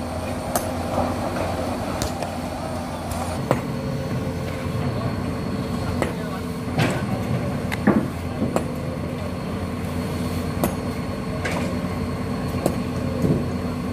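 Crawler excavator's diesel engine idling steadily, with irregular sharp metal knocks and clinks from a steel bar being worked at its track.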